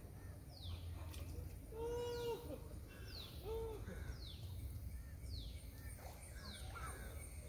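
Birds calling: a short call that drops in pitch, repeated about once a second. Two lower, arched notes come in around two and three and a half seconds in, over a faint low rumble.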